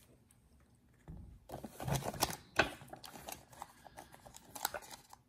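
Hands opening a clear plastic trading-card cube and pulling out the card packs and paper insert inside: irregular plastic clicks and taps with rustling of foil wrappers and paper, one click sharper than the rest near the middle.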